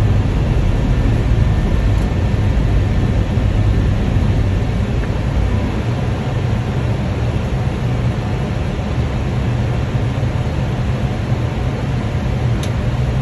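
Steady rushing flight-deck noise of an Airbus A320 on final approach: airflow over the cockpit and engine noise, with a deep rumble that eases a little about halfway through.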